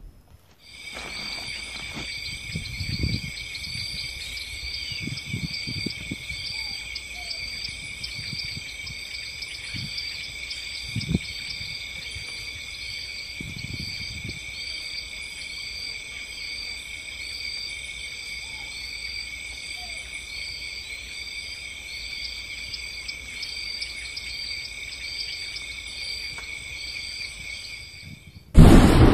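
Insect chorus, a steady high trilling in several stacked pitches with a faint regular pulse, cutting in about a second in and cutting off suddenly near the end. A few dull low thumps sound underneath, the sharpest about eleven seconds in.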